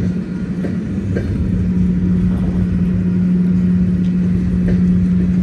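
Freight train of covered hopper cars rolling past, wheels rumbling with a few faint knocks, under a steady low hum that grows stronger about a second and a half in.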